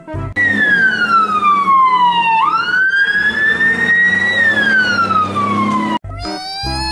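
Fire engine siren wailing: its pitch slides slowly down, climbs back up, then falls again before cutting off sharply near the end.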